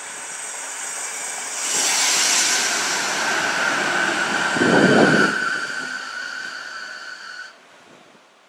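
Renfe Media Distancia passenger multiple unit passing close by a platform: rushing rail noise with a steady high whine, a loud low rush about five seconds in, then the sound drops away suddenly near the end.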